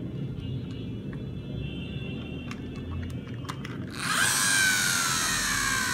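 Toy airplane whirring: light handling clicks, then about four seconds in a loud, high mechanical whine that falls steadily in pitch, like a spinning toy motor winding down.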